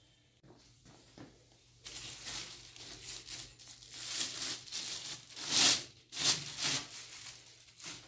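Plastic packaging crinkling and rustling in a run of bursts as a compressor handle is pulled free and handled, loudest twice near the end.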